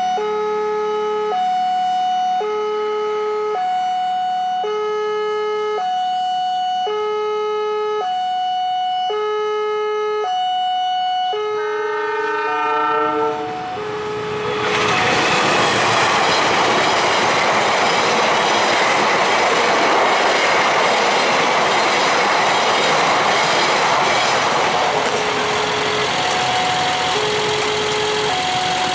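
Railway level crossing's electronic warning alarm sounding an alternating two-tone pattern, about one tone a second. About twelve seconds in a train horn blows, then a train rattles through the crossing and drowns out the alarm for about ten seconds. The alarm comes back near the end.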